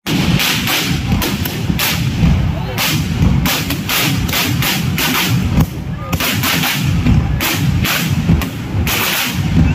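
Aerial fireworks bursting overhead in rapid succession: a dense, unbroken run of loud bangs, about three a second.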